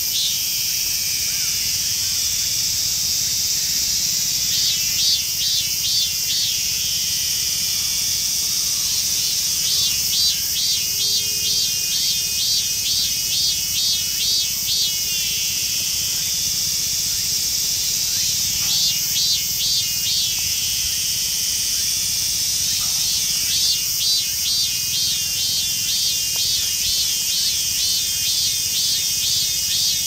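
Minmin cicadas (Hyalessa maculaticollis) singing: bouts of fast, rapidly repeated pulsing notes that come and go over a steady high-pitched cicada hiss.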